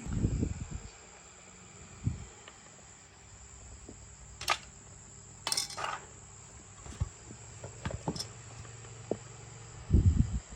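Steady high-pitched chirring of crickets, with scattered sharp metallic clinks around the middle and a few low knocks at the start and near the end.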